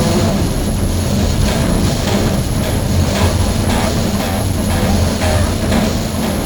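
Chainsaw engine running steadily at speed, a loud continuous drone with a slightly wavering pitch.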